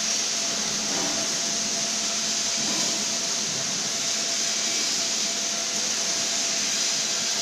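Steady hiss of blowing air with a faint, even hum underneath, unchanging throughout.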